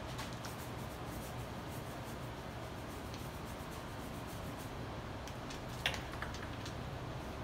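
Plaster-soaked cloth being lifted and handled, with light rustling and one sharp click about six seconds in, over a steady low hum in a small room.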